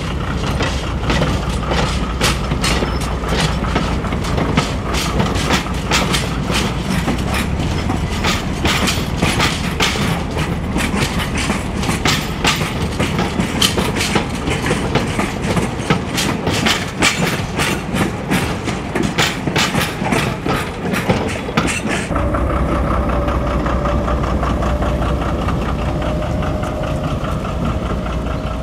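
Narrow-gauge Lxd2 diesel-hydraulic locomotive passing with a tourist train: its engine running over a fast, irregular run of wheel clicks as the carriages cross rail joints. About 22 seconds in the clicking stops and the locomotive's engine is heard alone, a steady drone with a held tone.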